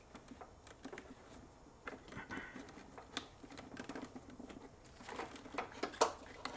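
Gloved hands handling wiring, cable and corrugated plastic conduit in a car's engine bay: scattered light clicks and rustling, with a few sharper clicks about five to six seconds in.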